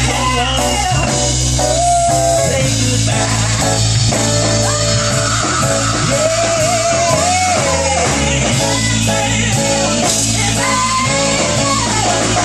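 Live blues band playing: electric guitar and drums, with singing over them.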